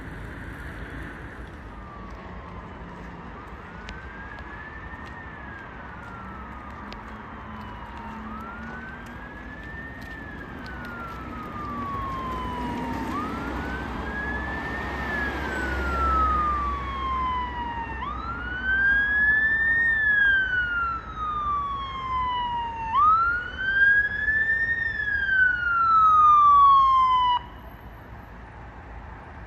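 Fire engine siren wailing as it approaches, each cycle rising quickly and falling slowly about every five seconds. It grows louder and then cuts off suddenly near the end. A low vehicle rumble swells briefly around the middle.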